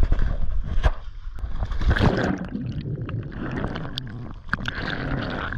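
Sea water rushing and slapping past a small boat, with wind buffeting the microphone. About two seconds in this gives way to water sloshing, gurgling and splashing around a camera held at the sea surface.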